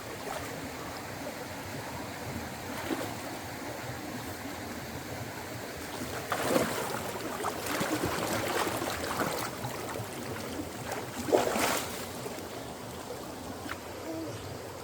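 Running stream water, with louder splashing about six seconds in and a short splash later on.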